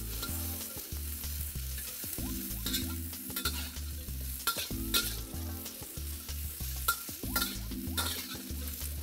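Edamame pods sizzling in hot oil in a wok as they are heated through before the garlic goes in, with a metal wok spatula scraping and clicking against the pan as the pods are tossed.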